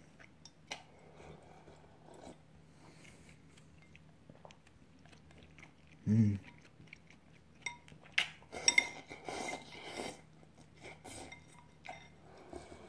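Someone eating ramen from a ceramic bowl: quiet chewing and slurping with small clicks of chopsticks against the bowl, a brief hummed voice sound about six seconds in, and a busier stretch of eating and clinking a couple of seconds later.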